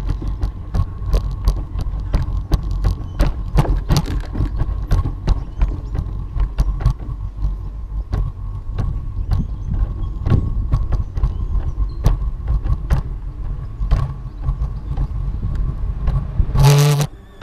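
Walking footsteps on a paved path, a regular run of sharp clicks, over a steady low rumble with a faint steady whine. Near the end comes one short, loud, pitched sound.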